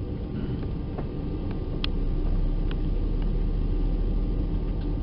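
Steady low cabin rumble and hum inside a Boeing 737-400, the aircraft's engines and air-conditioning, rising slightly in level over the first couple of seconds, with a few faint clicks.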